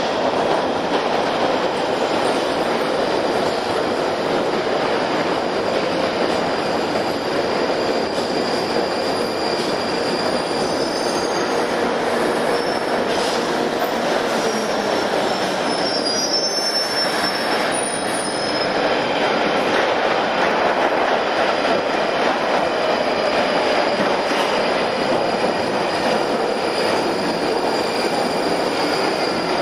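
London Underground Northern line trains running through the deep-level tube station: loud steady rail noise throughout. A high wheel squeal comes in from about ten to eighteen seconds in. The noise swells again after about nineteen seconds as a train runs in along the platform.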